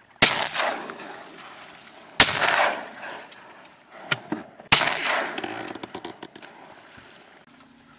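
Three shotgun shots about two and a half seconds apart, each trailing off for a second or so, with a few faint clicks after the second shot.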